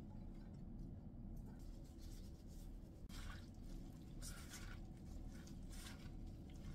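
A plastic-gloved hand tossing julienned radish in wet red-pepper seasoning in a stainless steel bowl: faint, intermittent soft rustles and squishes over a low room hum.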